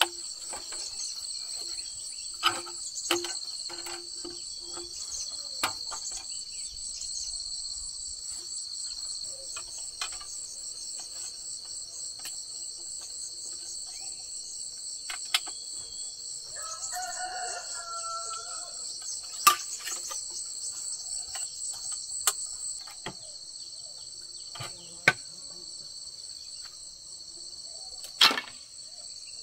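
Steady high-pitched chorus of insects, with a scattering of sharp knocks, the loudest near the end. A bird calls once about halfway through.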